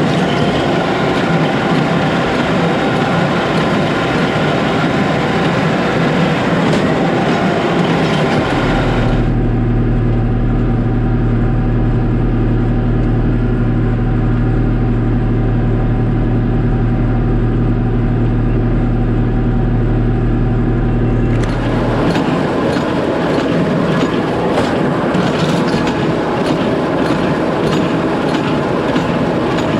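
New Holland BC5070 small square baler running while baling hay, pulled by a John Deere 4055 tractor: continuous rhythmic mechanical clatter over the tractor engine. For the middle stretch, from about nine seconds in, the clatter is muffled and a steady low engine hum dominates. The full clatter comes back at about twenty-two seconds.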